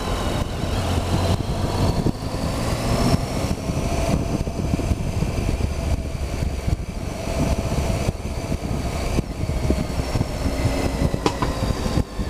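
Triumph Tiger 800's three-cylinder engine running as the motorcycle is ridden slowly through city traffic, heard from a camera on the bike with a steady low rumble.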